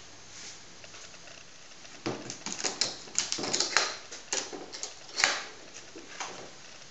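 Aluminium carry case being handled: a run of sharp clicks and rattles as its metal clasps are unlatched and the lid is lifted, starting about two seconds in, with the loudest snap about five seconds in.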